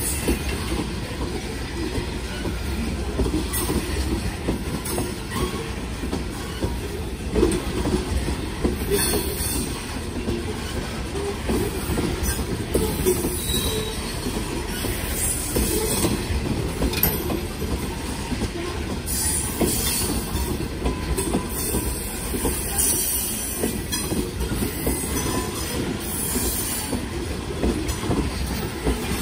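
Open-top ballast hopper cars of a freight train rolling past: a steady rumble and clatter of steel wheels on rail, with bouts of high-pitched wheel squeal that come more often in the last third.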